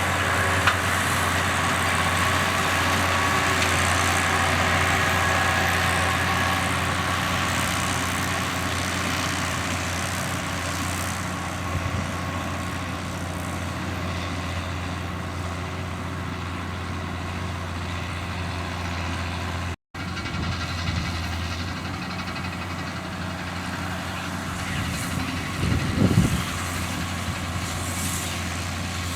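John Deere 7710 tractor's six-cylinder diesel engine running steadily under load while baling with a Krone round baler-wrapper combination, with the machinery's steady mechanical noise over the engine hum. The sound drops out for an instant about two-thirds through, and a short rattle comes near the end.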